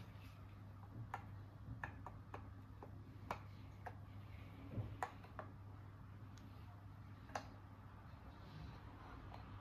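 Small toy pieces handled and set down, giving light, irregular clicks and taps, about a dozen, over a faint steady low hum.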